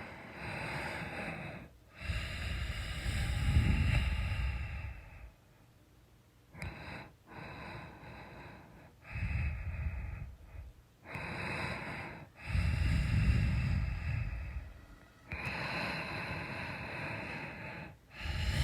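A person snoring: slow breaths in and out, one every second or two, with the louder drawn breaths carrying a low snore. The loudest snores come about four seconds in and again around thirteen seconds.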